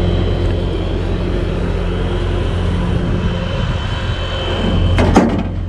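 An engine idling steadily, with a couple of sharp knocks about five seconds in.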